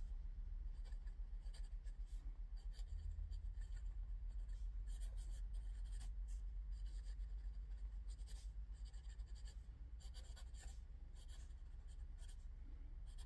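Fountain pen writing on 90 gsm Clairefontaine paper, its TWSBI Eco 1.1 mm steel stub nib making many faint short strokes across the page. A low steady hum runs underneath.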